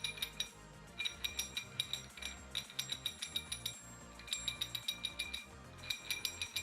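Outro music: bursts of quick, bright chiming notes over a steady low bass.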